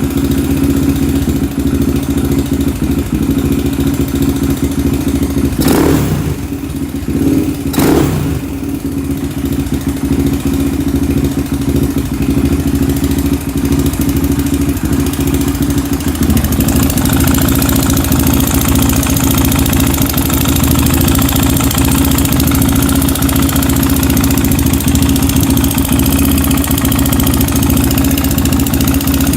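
Honda 400EX ATV's single-cylinder four-stroke engine idling, blipped twice briefly about six and eight seconds in, then running on with a hissier note past the middle. It has a tick that the owner points out; the engine had been run with the oil bone dry and smokes badly, and he thinks the top end is blown.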